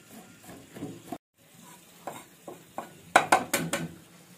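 Steel cleaver chopping red chillies on a wooden tree-trunk chopping block: a string of light knocks, with the sound cutting out for a moment just over a second in, then a quick run of about five louder chops around three seconds in.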